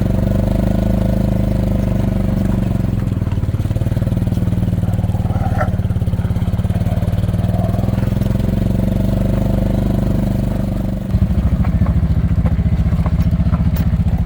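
Farm vehicle's small engine running steadily, getting louder and more pulsing about eleven seconds in as it is throttled up.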